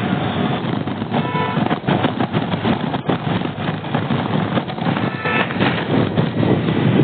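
Road traffic noise: a steady, dense rumble of vehicles on the road, with brief higher-pitched tones about a second in and again about five seconds in.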